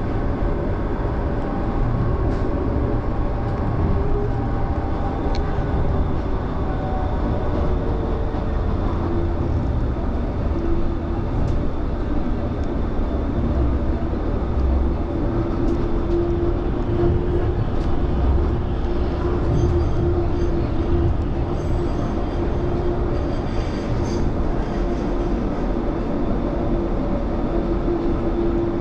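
Low-floor light-rail tram running along the track: a steady rolling rumble, with a steady humming tone that grows plainer about a third of the way in.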